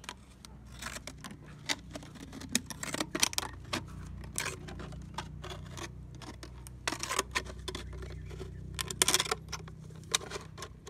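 Scissors cutting through a thin plastic drink bottle: a run of irregular snips with the plastic crackling as it is cut.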